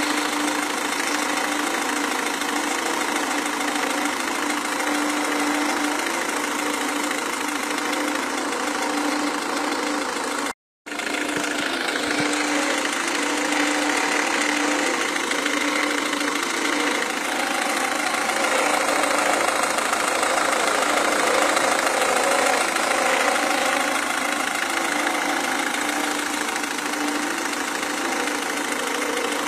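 Renault Megane 1.5 dCi four-cylinder turbodiesel engine running at idle, with the abnormal engine noise whose cause is being sought. The sound cuts out completely for a split second about a third of the way in.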